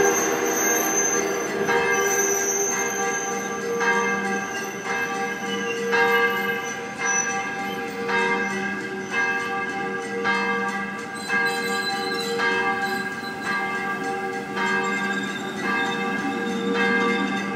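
Church bells ringing, several bells of different pitch striking roughly once a second, over the low rolling sound of Rhaetian Railway carriages moving slowly past.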